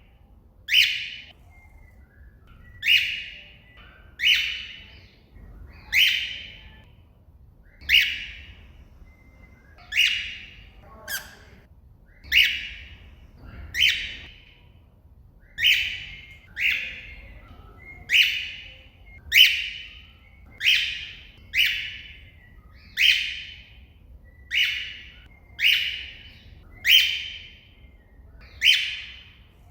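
Cockatiel giving loud, short contact calls over and over, one about every one to two seconds, calling out to another cockatiel.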